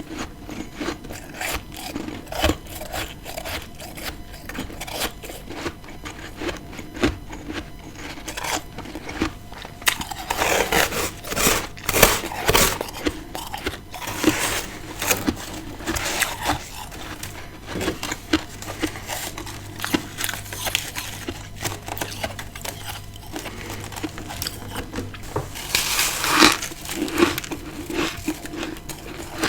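Close-up chewing and crunching of freezer frost: crackly, crunchy bites of powdery ice, with louder bouts of crunching about ten to thirteen seconds in and again near the end.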